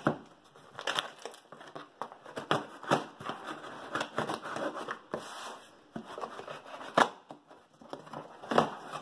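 Packing tape on a cardboard shipping box being slit and torn open with a thin metal tool: scraping, ripping tape and rustling cardboard, broken by several sharp knocks against the box, the loudest about seven seconds in.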